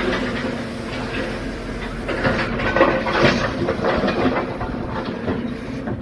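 Hidromek 140 tracked excavator running while its bucket handles broken stone and paving rubble into a steel dump truck bed: a steady engine hum under dense clattering and knocking of rocks, loudest about three seconds in.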